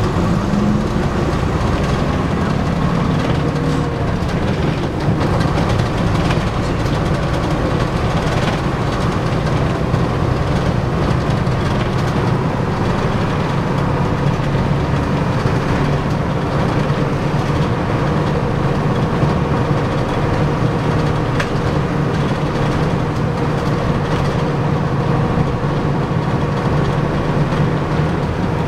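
Heritage bus driving along a road, heard from inside the cabin: a steady engine drone with road noise and light rattling from the body.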